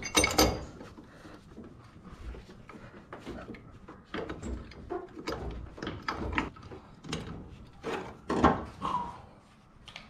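Vice grips (locking pliers) working at a metal fitting on an LS V8's thermostat housing: a run of metallic clanks, clicks and scrapes. There is a loud clank at the very start, the loudest just over 8 seconds in, and a short squeak right after it.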